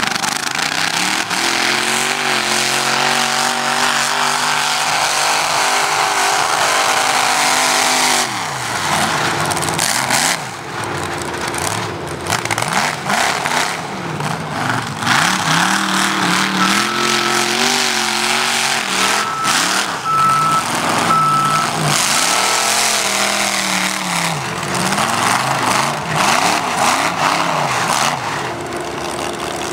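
Big 4x4 mega mud truck engine revving hard, its pitch climbing and dropping off again and again as the truck drives and jumps over dirt mounds. A few short faint beeps sound midway.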